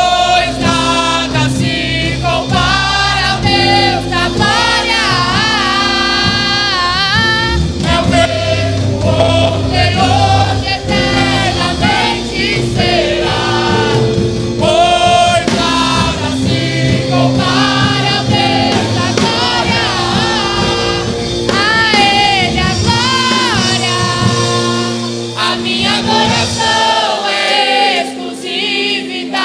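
Choir singing a Brazilian Portuguese gospel song with a live band. Near the end the low accompaniment drops away, leaving mostly the voices.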